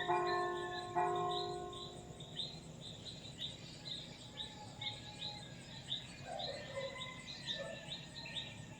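A church bell is struck about a second in and rings on, fading over the next few seconds, after a strike just before. Behind it runs an even series of high chirps, a little over two a second.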